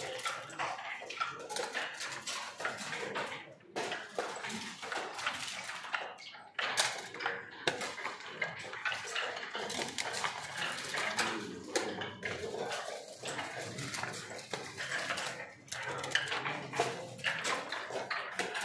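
Backgammon dice rolled onto a wooden board and checkers clacking against it, a rapid, irregular series of clicks and knocks.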